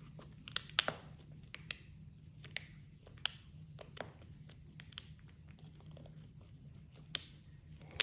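A British Shorthair cat biting and chewing a dried rabbit ear: a string of irregular sharp crunches, the loudest about a second in and near the end.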